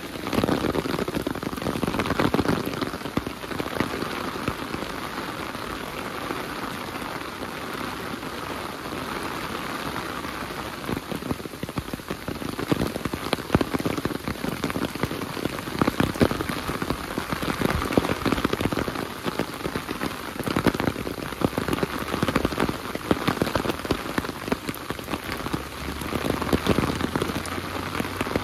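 Heavy rain falling steadily, with many close, sharp drop hits scattered through the even hiss.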